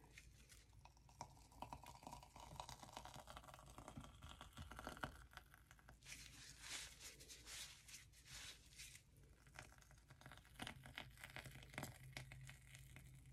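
Faint crinkling and rustling of a plastic piping bag squeezed in nitrile-gloved hands as whipped body butter is piped into a jar, coming in irregular bursts that are busiest about six seconds in and again near the end.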